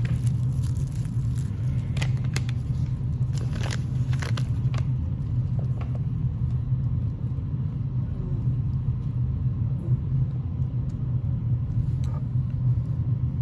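Packaging being handled and opened: a run of crinkles and clicks over the first few seconds, with a few more near the end. Under it is a steady low rumble.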